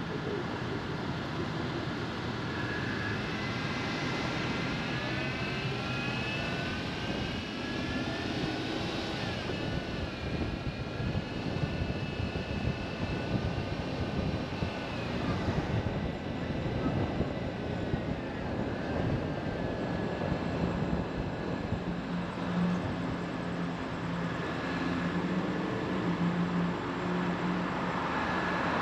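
Steady traffic and road noise with a high engine whine that drifts slowly up and down in pitch. A low steady hum sets in about twenty seconds in.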